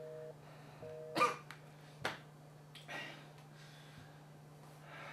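Telephone busy tone in a phone's earpiece: two pitches together, beeping on and off in half-second pulses, then cutting off about a second in. A short sharp breath and a click follow, then a few quieter breaths over a steady low hum.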